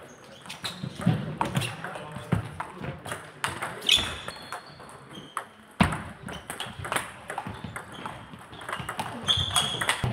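Table tennis rally: the celluloid-type ball clicks sharply and unevenly off the rubber bats and the table top, with a few short high squeaks among the hits. Voices murmur through the hall behind.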